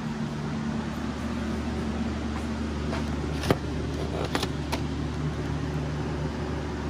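Steady low mechanical hum, with a few light clicks and taps about halfway through as a boxed rear-differential pinion seal is handled on a workbench.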